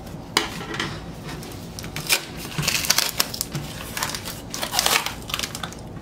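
Cardboard record mailer being handled and cut open along its taped seam: a few sharp clicks, then dense scratchy scraping and crinkling of cardboard and packing tape from about two and a half seconds in.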